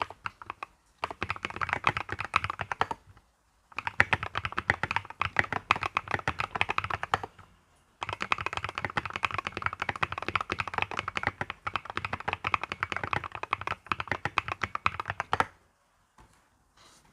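Mstone mechanical keyboard being typed on quickly in long runs of keystrokes, with two short pauses. The typing stops near the end.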